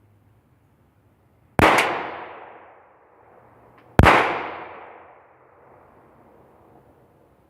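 Two gunshots, the first about a second and a half in and the second about two and a half seconds later, each sharp crack echoing away for over a second.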